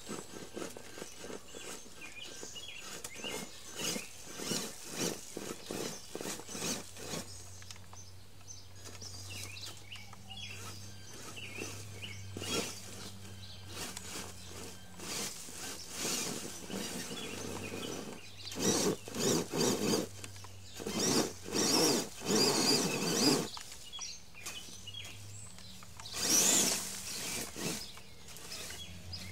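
Traxxas E-Maxx 3906 RC monster truck driving through weeds and brush: many short bursts of electric motor and drivetrain whine as the throttle is blipped, mixed with plants rustling and snapping under the tyres. The bursts come thickest and loudest about two-thirds of the way through, with one more strong burst near the end.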